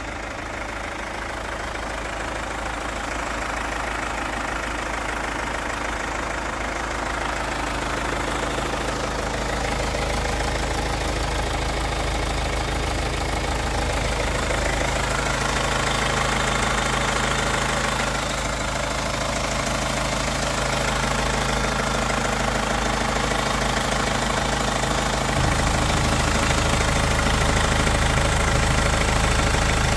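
Hyundai Santa Fe's 2.0-litre turbo-diesel four-cylinder engine idling steadily, heard up close under the open hood. It grows gradually louder, and its low hum strengthens suddenly about 25 seconds in.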